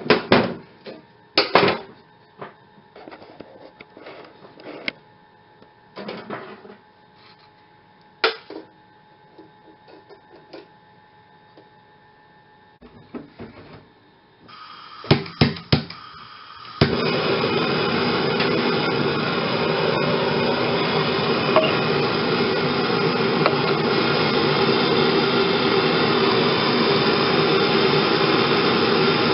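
Band saw blade stock being snipped with cutting pliers: a couple of sharp snaps, then scattered small clicks. Past the middle a handheld gas torch starts to hiss, its igniter clicks three times, and the flame catches and burns with a loud, steady rush, heating the blade end to anneal it.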